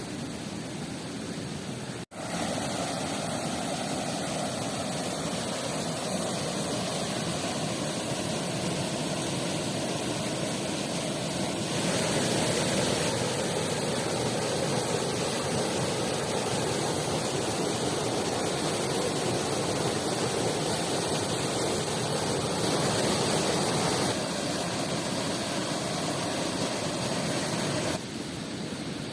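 Steady rushing water of a river and waterfall, with a brief dropout about two seconds in and sudden steps up and down in loudness a few times.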